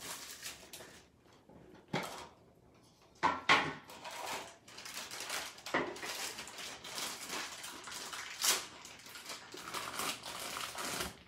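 Small metal tin being handled and opened: sharp clinks and taps of the tin and its lid, the loudest about three and a half seconds in, then plastic wrapping rustling and crinkling.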